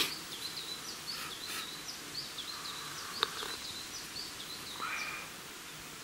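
A small bird calls over and over in short, high chirps, about two a second, over a faint steady high whine. A single sharp click comes about three seconds in.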